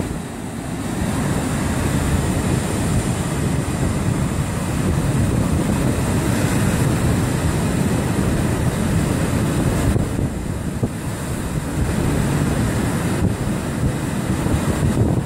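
Rough Atlantic surf in the wake of a hurricane, waves breaking and washing up the beach, with strong wind buffeting the microphone.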